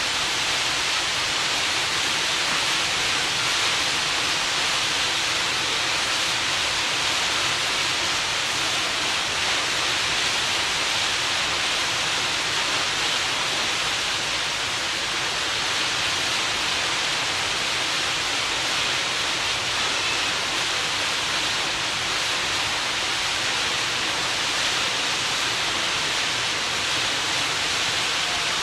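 Steady rushing hiss of water churned up in a ferry's wake, with no change in level.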